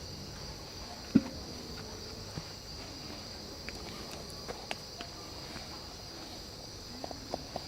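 A steady high-pitched chorus of insects chirping, with scattered faint clicks and one sharper knock about a second in.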